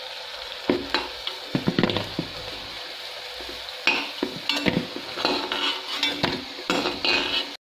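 Oil sizzling steadily as aloo tikkis shallow-fry in a metal kadhai. A perforated metal slotted spoon scrapes and clinks against the pan several times as the tikkis are lifted out.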